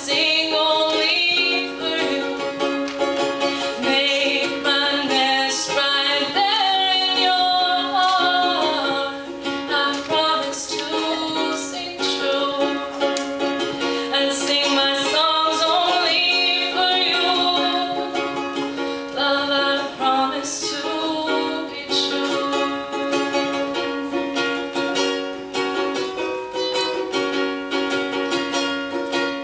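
A ukulele played through a song with a voice singing over it; the singing is heard mostly in the first half, where the melody rises and falls.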